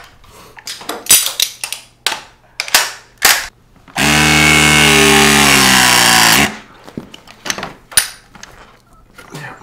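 A cordless power tool's motor runs steadily for about two and a half seconds around the middle, then winds down as it is released. Before and after it there are scattered clicks and knocks of the tool being handled and fitted onto the copper line.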